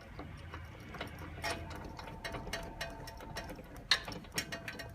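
Ratcheting hand tool clicking irregularly as a screw is driven back in, with metal parts knocking now and then and a sharper click about four seconds in.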